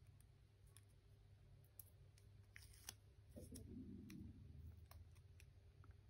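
Very faint paper handling: light clicks and a short rustle as fingers pick at and peel a small paper sticker, with a soft low sound just after the middle.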